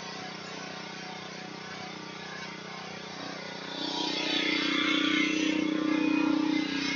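Small gasoline engine of a pressure washer running steadily, growing louder about four seconds in.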